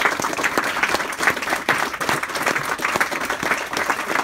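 Audience applauding: many hands clapping steadily and loudly after a reading.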